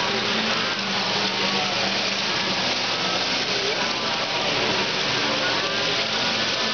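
Model freight train rolling past on its track, a steady rolling noise of wheels and motor, with indistinct voices in the background.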